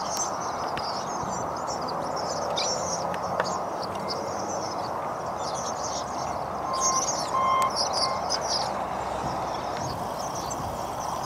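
A large flock of swallows twittering as they fly, a dense chatter of many high chirps that grows busier about seven seconds in, over a steady background rush.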